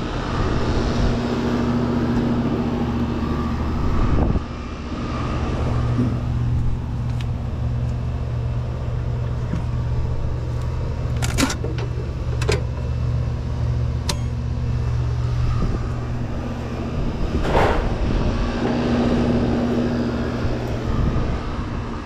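A steady low mechanical hum with a few sharp clicks and knocks.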